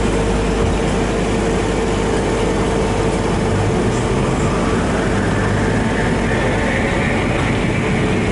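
Interior of a historic Konstal tram running: a steady low rumble and hum fill the car, and a whine rises in pitch over the last few seconds as the tram gathers speed.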